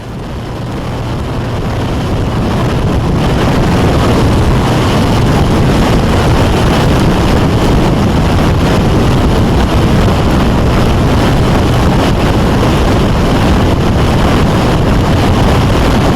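Wind rushing over the microphone of a camera on a moving car, over road and engine noise. It builds over the first four seconds or so, then holds steady and loud.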